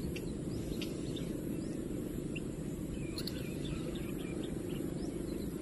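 Rural outdoor ambience: a steady low background rumble with faint, scattered short bird chirps.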